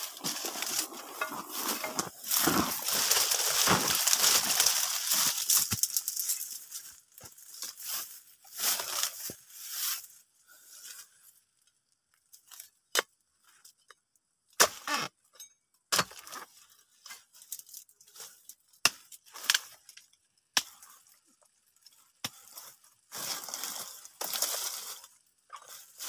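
Dry palm fronds and leaf litter rustling and crackling for the first several seconds. Then comes a scattered series of sharp knocks and clinks as a ripe fruit bunch is cut free from the base of a young oil palm.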